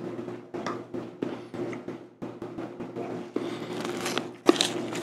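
Paper wrapper rustling and crinkling as gloved hands handle a white chocolate bar, breaking off a piece, with irregular small crackles and a couple of sharper clicks near the end. A steady low hum runs underneath.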